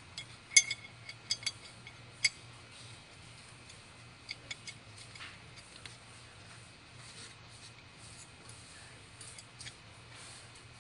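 Small metal karting clutch parts clinking and clicking as they are handled. A few sharp, ringing metallic clinks in the first couple of seconds, the loudest about half a second in, then lighter scattered clicks.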